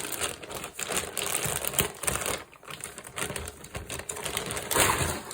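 Packaging and fabric rustling and crinkling as a newly unboxed tactical backpack is unwrapped and handled, with quick irregular clicks and scrapes.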